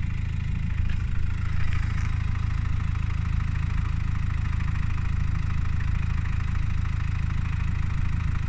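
Subaru Outback 2.0D flat-four boxer turbodiesel engine idling steadily, with a brief swell and a short gliding tone about a second in. The owner finds the engine's sound weird.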